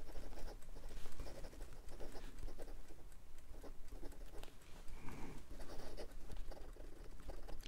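Hongdian 1861 Black Forest brass fountain pen's fine #5 nib scratching across lined notebook paper in quick, irregular strokes as words are written fast; the nib keeps up with the quick writing.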